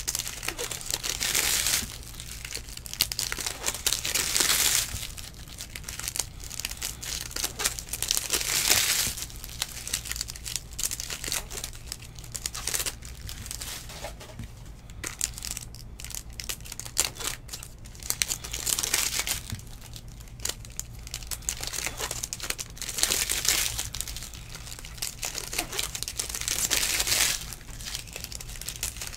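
Plastic trading-card pack wrappers crinkling and tearing open in several loud bursts, with quieter rustling of cards being handled and stacked in between.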